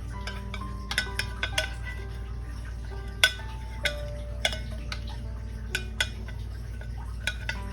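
Irregular sharp clinks and taps of tools against a glass terrarium bottle, about a dozen, the loudest a little over three seconds in, over soft background music.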